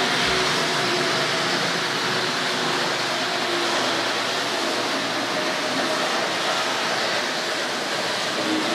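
Two Tri-ang 00-gauge model trains, the R.555/R.556 Blue Pullman and an EMU, running on the track at the same time: a steady, loud whirr from their motor bogies and ribbed metal wheels, with a faint wavering hum under it.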